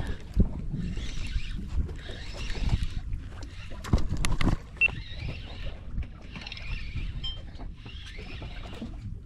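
Water washing against a small boat's hull in swells about once a second, with a few hard knocks.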